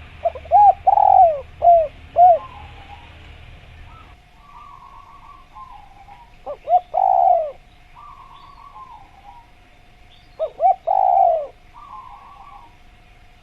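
Spotted dove cooing in three phrases: about a second in, near the middle and around eleven seconds. Each phrase is a few short coos and one longer coo that falls away. Fainter chirps of small birds come in between the phrases.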